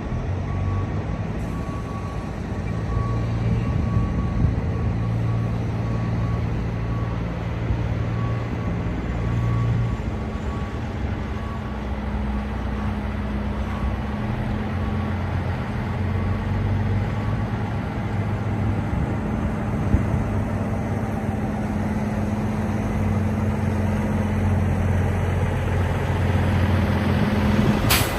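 Diesel semi-truck engines running as the tractors maneuver past, a steady low drone whose pitch shifts up and down as they move. A sharp click comes at the very end.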